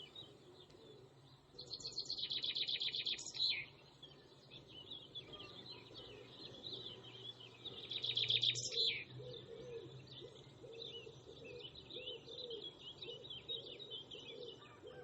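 Birds chirping, with two louder rapid trills, one about two seconds in and one about eight seconds in, over a bed of small high chirps. Low repeated cooing runs through the second half.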